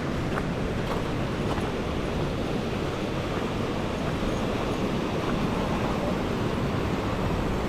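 Steady rushing wind noise with a low rumble, buffeting the microphone of a handheld action camera.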